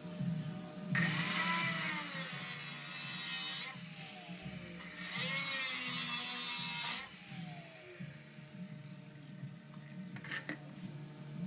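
Power tool running in two bursts, about three seconds then about two seconds, with a hissing whine whose pitch sags and recovers as it bites into sheet metal during body panel cutting.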